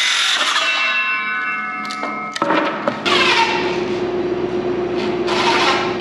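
Cordless circular saw cutting through a 2x4, its blade ringing as it winds down. About two and a half seconds in, a cordless drill runs steadily, driving screws into the wooden form.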